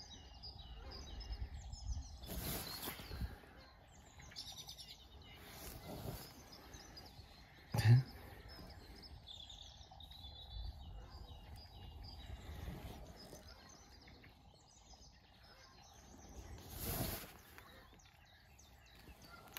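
Small birds chirping and singing, with a faint steady hum, a few brief gusts of noise and one sharp knock about eight seconds in.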